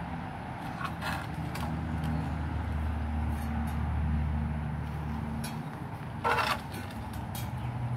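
A low motor-vehicle engine hum that swells and fades away after about five seconds, with a few faint clicks and a short, sharp rush of noise a little after six seconds in.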